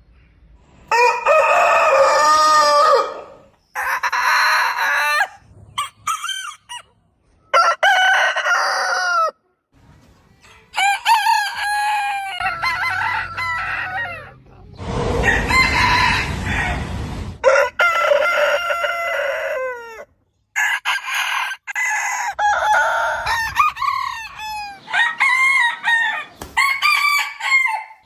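Roosters crowing, one crow after another, each a second or two long, broken by sudden gaps, with some clucking between them. About halfway through, one crow has a burst of rough noise under it.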